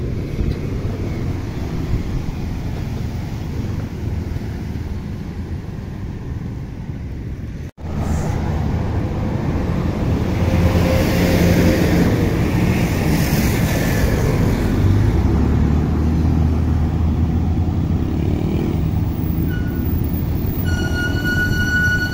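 Street traffic: cars and motorbikes passing, with wind rumbling on the microphone. Near the end a steady high-pitched squeal sets in.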